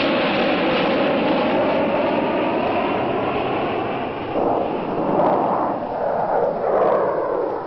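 Jet airliner engine noise from aircraft taking off and passing overhead: a loud, steady rush that turns uneven and wavering from about halfway through.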